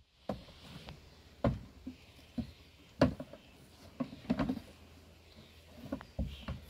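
Irregular knocks and clunks of stored items being shifted about inside a small wooden playhouse, the loudest about three seconds in.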